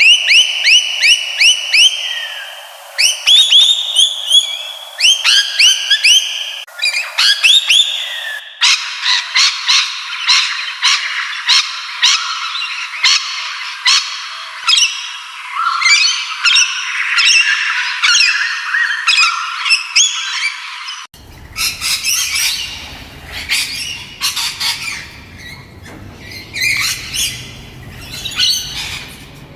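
Parrots calling, in three spliced recordings: first quick, repeated whistled chirps, then dense squawking and chattering from about eight seconds in, and from about twenty-one seconds a different recording of chirps and squawks over a low background rumble.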